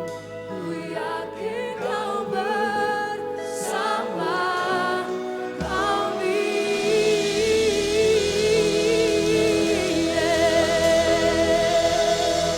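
Live Christian worship band and singers performing a praise song. About halfway through the band swells to full, under long held sung notes.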